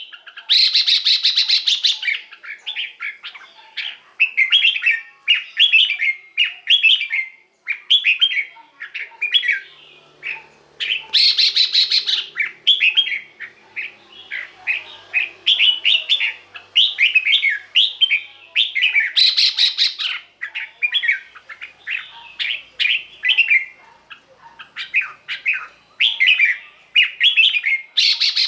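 Red-whiskered bulbul singing: a steady run of short, quick whistled phrases, broken by a few louder, harsher bursts.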